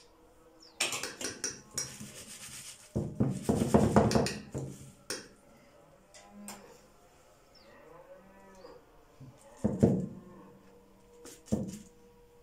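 A metal spoon and knife clink and scrape against an aluminium baking tray and bowl as milk-and-egg mixture is spooned over filo pastry. About three seconds in there is a louder, rough, low sound lasting about two seconds.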